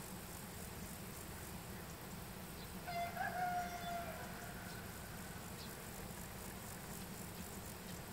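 A rooster crowing once, about three seconds in, for about a second, over a steady low background hum.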